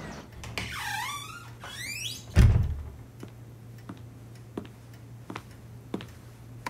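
Cartoon foley: two quick falling swoops, then a heavy thud about two and a half seconds in, followed by a string of light clicks roughly every two-thirds of a second.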